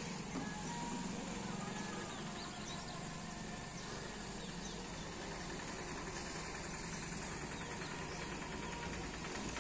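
Steady outdoor background noise with a low, even engine-like hum and no distinct events.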